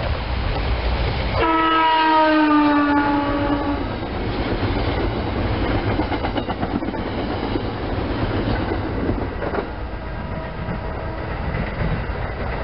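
SEPTA Silverliner IV electric multiple-unit commuter train passing close by: its horn sounds once about 1.5 s in, for about two seconds, falling in pitch, followed by the rumble of the cars and wheels clicking over the rail joints.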